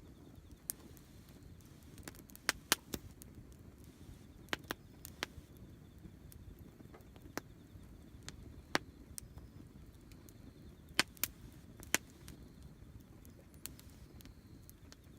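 Wood campfire crackling: about a dozen sharp, irregular pops and snaps over a low steady rumble.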